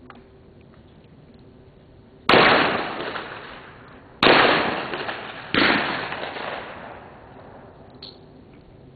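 Three shotgun shots, the second about two seconds after the first and the third a little over a second later, each followed by an echo that dies away over a second or more.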